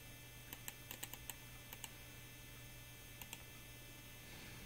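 Faint clicking of computer keys: several quick pairs of clicks in the first two seconds and one more pair a little after three seconds, over a steady low hum.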